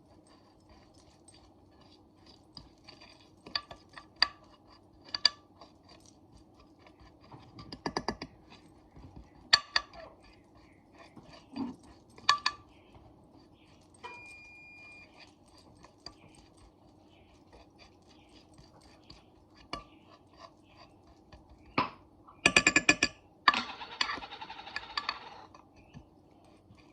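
Scattered clicks and clinks of a utensil against a baking pan as brown sugar is spread over the melted butter. A short steady beep sounds about halfway through, and near the end comes a quick rattle followed by a couple of seconds of scraping, rustling noise.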